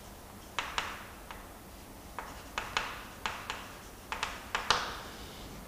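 Chalk tapping against a chalkboard as a line of words is written: about a dozen short, sharp taps at an irregular pace.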